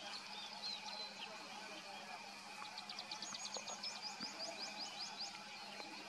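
Wild songbird calling: a few scattered high chirps, then a fast run of short, sharp, high notes, about seven a second, lasting about two and a half seconds, over a steady faint background hum.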